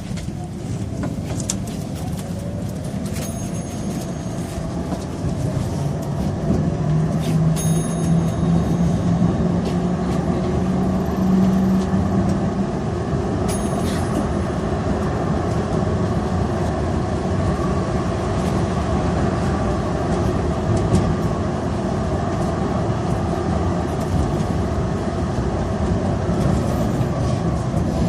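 Electric tram riding on its rails, heard aboard: a steady rumble of wheels on track, getting louder over the first few seconds. A motor whine rises in pitch as it picks up speed, then fades about twelve seconds in. A few sharp clicks come in the first half.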